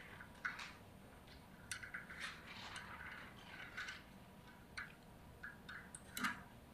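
Faint handling noise: scattered light clicks and scrapes of a metal mounting adapter plate and a Vicon T-Series camera body being handled, with a sharper click about six seconds in.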